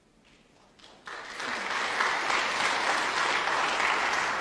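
Snooker audience applauding, starting suddenly about a second in and holding steady, with a faint click just before it.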